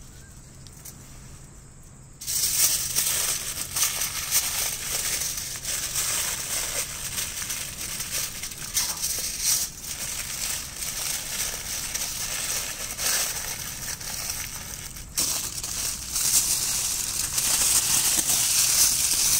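Aluminium foil crinkling as it is folded and pressed around a food parcel, starting loudly about two seconds in and going on in uneven handfuls.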